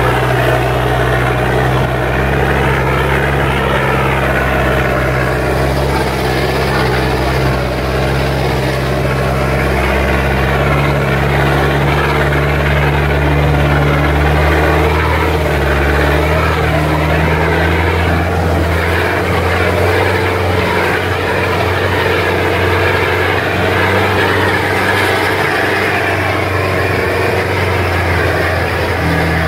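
Engine of an open-topped off-road 4x4 running steadily as it is driven over a rough dirt track, heard from inside the open cabin; its low drone shifts pitch a few times around the middle.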